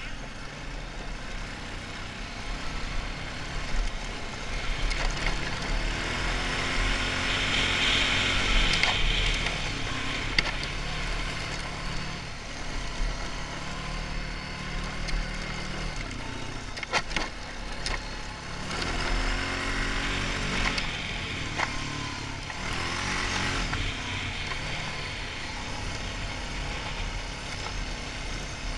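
Honda 450 ATV's single-cylinder four-stroke engine running under way, revving up and easing off again twice. A few sharp knocks come about two-thirds of the way through.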